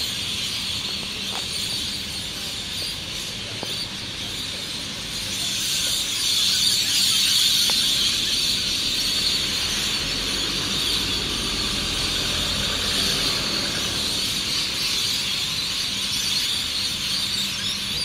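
A large flock of birds calling all at once in a dense, steady chorus, a little louder from about six seconds in.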